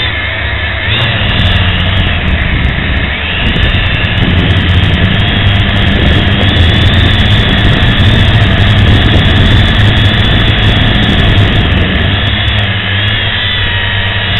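Propel HD Video quadcopter's electric motors and propellers whining steadily in flight, the pitch of the whine shifting up and down a few times, over a heavy low rumble.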